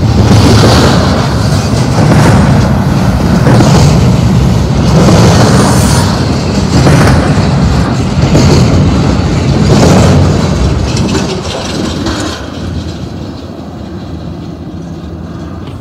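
Double-stack intermodal well cars of a freight train rolling past, the wheels clattering over the rails in loud, regular bursts about every second and a half. The noise fades in the last few seconds as the end of the train moves away.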